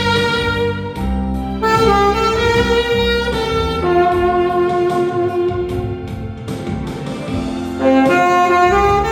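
Tenor saxophone playing a slow, smooth melody with long held notes over a backing track.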